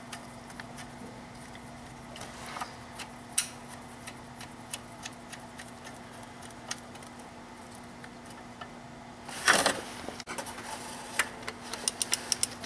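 Scattered small metallic clicks and taps of hand tools at the belt tensioner's central bolt, over a faint steady hum. A louder scraping rustle comes about three quarters of the way through, then a quick run of clicks near the end as a wrench is fitted to the bolt for torquing.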